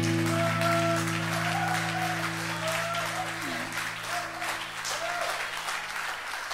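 The song's final chord rings out and slowly fades, the lower notes dropping away near the end, under audience applause with a few cheering voices.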